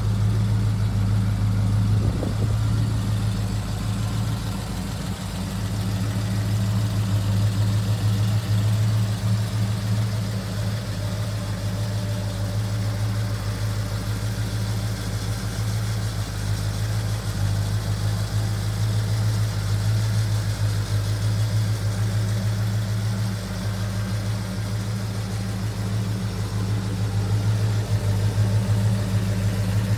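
1970 Pontiac GTO's V8 idling steadily through a new 2 1/2-inch exhaust, a deep even burble with no revving. It is a little quieter in the middle and louder again near the end.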